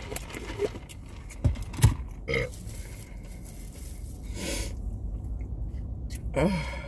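Eating and drinking sounds inside a car: small clicks of a straw and plastic cup, two low thumps about a second and a half in, and a short throat sound like a burp. Later come sharp sniffs of a nose running from hot sauce.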